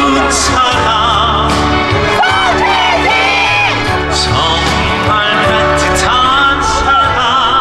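Amplified singing over backing music, with a steady bass line.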